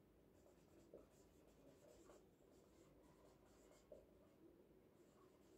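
Very faint scratching and squeaking of a marker writing on a whiteboard in short strokes, with a couple of light ticks as the pen touches the board.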